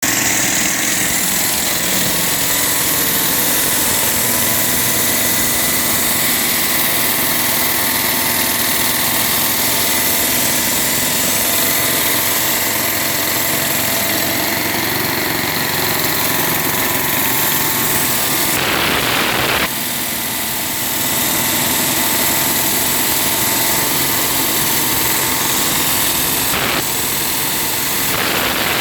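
Engine-driven concrete-cutting saw running steadily under load, with a high whine and hiss; the level drops briefly about two-thirds of the way through.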